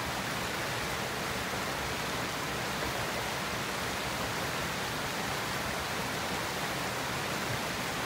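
Shallow mountain stream rushing steadily over rocks: a loud, even rush of water.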